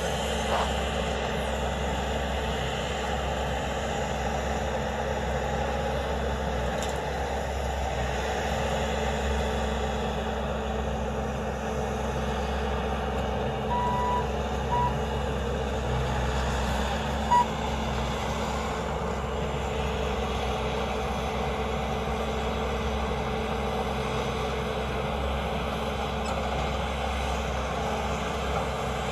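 Bobcat T590 compact track loader's diesel engine running steadily under load while raking roots and brush, heard from a distance. A few short beeps of its backup alarm sound about halfway through.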